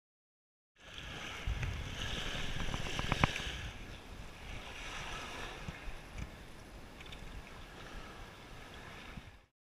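Wind buffeting the microphone over the steady wash of surf, with a few sharp clicks about three seconds in. The sound starts suddenly just under a second in and cuts off shortly before the end.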